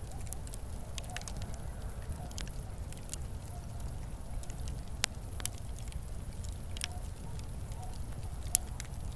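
Fireplace fire burning with a steady low rumble and scattered sharp crackles and pops. The loudest pop comes about eight and a half seconds in.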